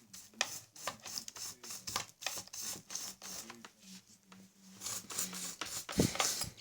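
Small scratches, taps and rubbing of tools and wires being handled on a work surface during soldering, with a louder knock near the end over a faint steady low hum.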